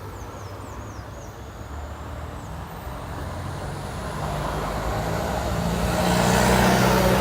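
A motor vehicle approaching, its engine and road noise growing steadily louder.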